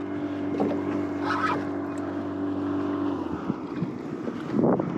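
Steady low hum of a boat engine running, which stops about three seconds in.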